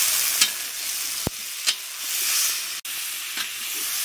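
Vegetables frying in hot oil in an iron kadhai, sizzling steadily, while a metal spatula scrapes and stirs against the pan a few times.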